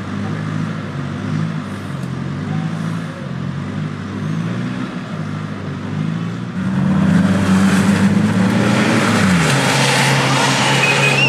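Off-road 4x4's engine running and changing revs while driving through heavy mud. About six and a half seconds in it revs up and gets louder, with a rushing noise over it, then the revs drop.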